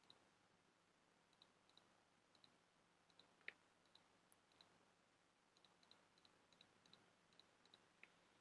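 Faint computer mouse clicks, irregular and spread through the whole stretch, with one louder click about three and a half seconds in, over near silence.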